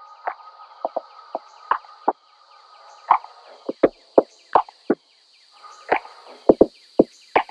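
Typewriter keystroke sound effect: irregular clacks, roughly two a second, over a faint steady high whine.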